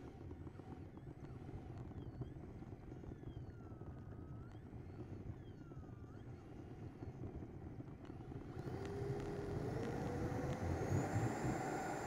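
Electric ducted-fan motor of an Avanti RC jet, heard through the model's onboard camera while it rolls on asphalt: a low rumble with faint whining tones gliding down and up. About eight and a half seconds in the fan spools up, louder and higher, for the takeoff run.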